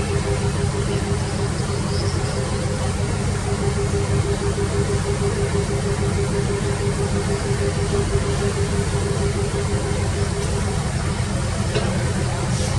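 Excavator's diesel engine running steadily, with a steady whine over the low rumble that fades near the end.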